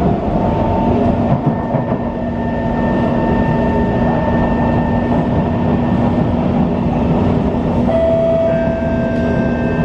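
SMRT C151 metro train running along the track, heard from inside the carriage: a loud, steady rumble with a constant hum and a few faint steady tones over it. A couple of new tones come in about eight seconds in.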